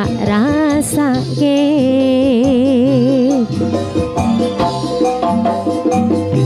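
Live jaranan music from an East Javanese ensemble: drums and repeating low notes under a loud lead melody that slides and trembles, held longest during the first three and a half seconds.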